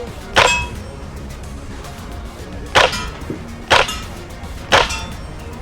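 Elite Force UMP 45 green-gas blowback airsoft gun firing four single shots, each a sharp crack with the slide's blowback, unevenly spaced over a few seconds.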